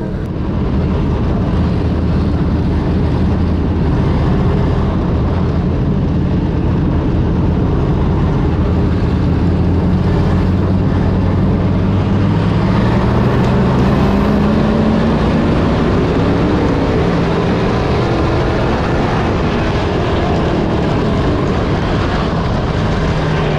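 Race car engine running at speed, its pitch climbing gradually over several seconds and dropping back a little past halfway, over a steady noisy backdrop.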